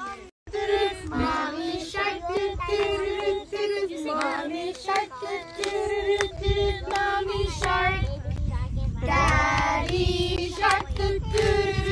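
A group of children singing together on a steady, chant-like tune, with some hand claps.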